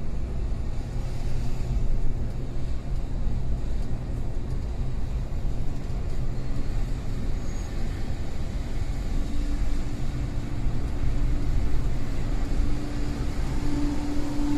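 Scania bus on the move: steady engine drone and road rumble, with a humming tone that grows louder near the end.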